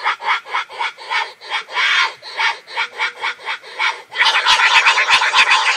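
Recorded wild sow in heat grunting in quick rhythmic pulses, about four to five a second, turning louder and faster about four seconds in; a sow's estrus call, played as a lure to draw boars.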